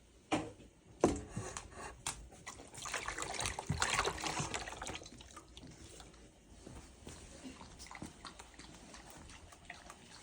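Water pouring and trickling, with two knocks in the first second; the water is loudest about three to five seconds in.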